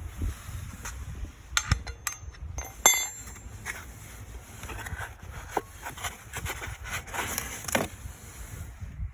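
Metal clinks and knocks, as of tools handled during a tyre change, with the loudest, briefly ringing clink about three seconds in, over a low wind rumble on the microphone.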